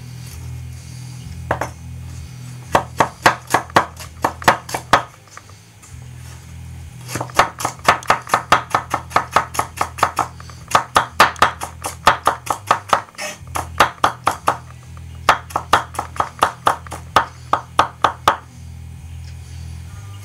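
Ikea Slitbar kitchen knife chopping rapidly on a cutting board, about four to five strokes a second, in four runs separated by short pauses, over background music.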